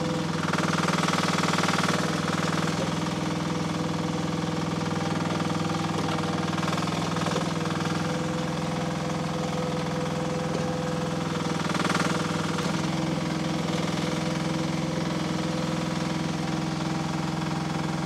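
Mini excavator's engine running steadily while it digs, its note swelling a little about a second in and again around twelve seconds.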